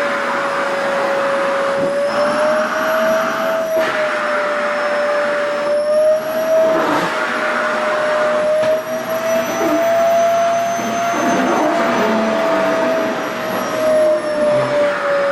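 SHARP EC-KP7F-A vacuum cleaner running steadily while sucking at an organza skirt. Its motor whine wavers slightly in pitch, and the rush of air swells and fades every couple of seconds as the stiff, air-permeable fabric is drawn against the nozzle.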